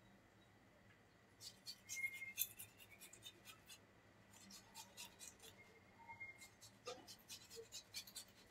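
Faint, irregular light clicks and rustles of hands handling something small, starting about a second and a half in.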